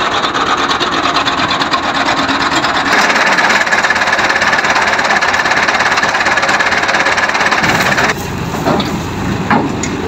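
Tractor-driven rice thresher running under PTO power from a Fiat 640 tractor: a loud, steady rasping whir with the tractor's engine underneath. The sound changes abruptly twice, about three seconds in and again about eight seconds in.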